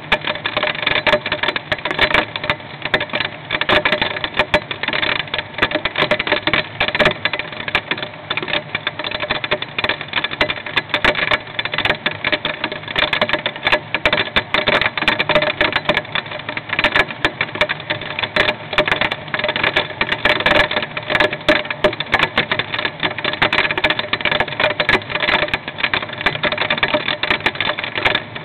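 Hailstones hitting a nest box, heard from inside the box: a dense, continuous clatter of small irregular impacts.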